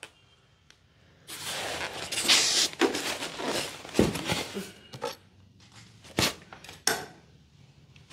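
Polystyrene foam packing pieces scraping and knocking against a plastic-bagged subwoofer while it is unpacked, with the plastic bag rustling. After a quiet first second there is a stretch of rustling, then a few sharp knocks in the second half.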